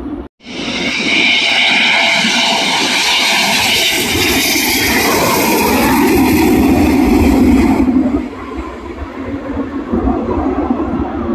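A Eurofighter Typhoon's twin EJ200 turbofans on landing approach: a loud jet roar with a high whine. It starts abruptly about half a second in and cuts off sharply near eight seconds, giving way to a quieter, more distant jet rumble.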